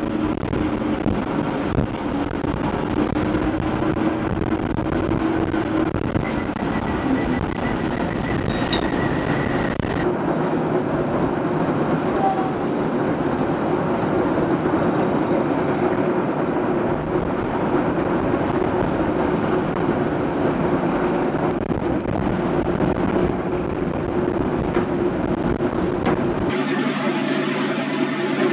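Boat engines running steadily on a river, with wind and water noise on the microphone. Near the end the sound switches to a small motorboat's engine humming at a steady pitch.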